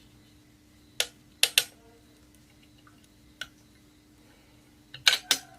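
A few sharp small clicks and taps as a CPU is seated and secured in an LGA 1700 motherboard socket: two close together about a second in, a faint one midway, then a quick cluster of louder ones near the end.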